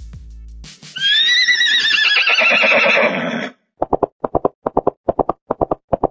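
A horse whinnies once for about two and a half seconds, a wavering call that falls in pitch. A quick galloping run of hoofbeats follows.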